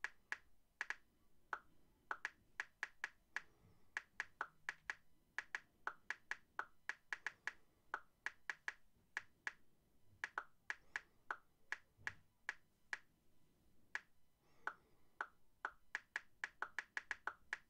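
Typing on an iPad's on-screen keyboard: an irregular run of short, sharp key clicks, two to four a second, with a few brief pauses.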